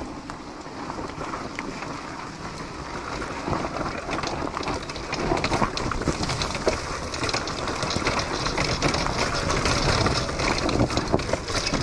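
Homemade electric Honda CR dirt bike rolling down a forest trail: tyres running over leaf litter and dirt, with many small knocks and rattles, getting louder toward the end as it picks up speed.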